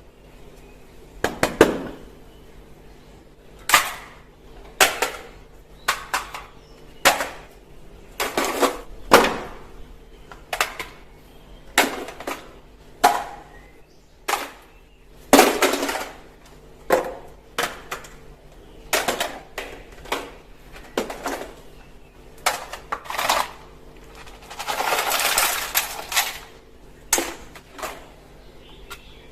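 Hard plastic toy guns being handled: an irregular run of sharp clacks and clicks, about one a second, with a longer rattling scrape about 25 seconds in.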